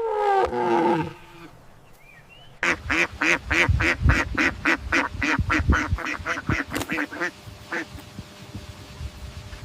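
A cow's moo falls away and ends in the first second. Then a bird gives a rapid run of about twenty short, evenly spaced calls, roughly four a second, lasting about five seconds.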